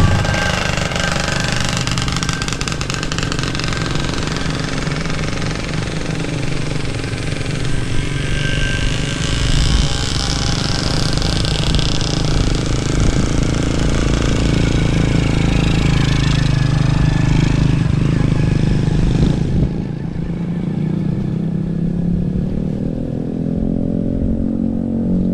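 Pickup truck engine running on the move, with wind and road hiss over it. About 20 seconds in the hiss falls away and the engine pitch rises steadily, as if pulling harder.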